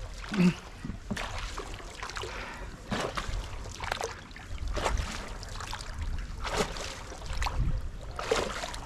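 Shikara being rowed with a wooden paddle: water splashing and dripping with each stroke, about once a second, over a low rumble.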